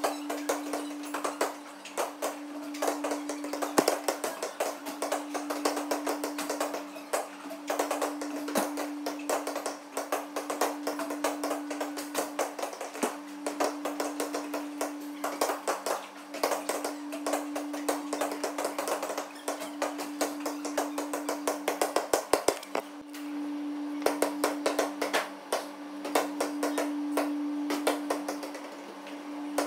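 Basketballs bouncing on a hardwood gym floor: many irregular thumps, several a second, over a steady low hum.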